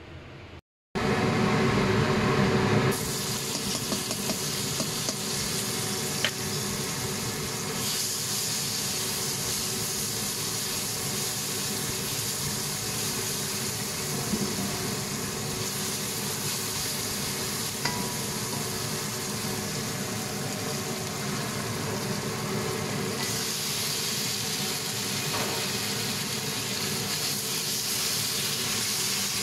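Chopped aromatics, then pieces of marinated pork, sizzling in hot oil in a wok and stirred with a spatula, a steady frying hiss with a few light clicks of the spatula against the wok.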